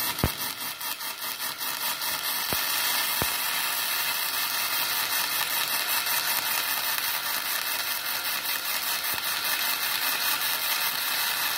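Gasless flux-cored wire MIG welding arc from a Multipro MIG-MMA/TIG 160 A-SC inverter welder: a steady, continuous crackling hiss, with a few sharp pops in the first few seconds.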